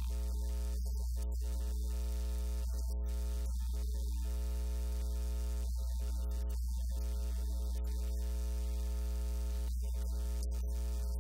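Steady low mains hum with a buzzy stack of evenly spaced higher tones. The upper part cuts out briefly now and then.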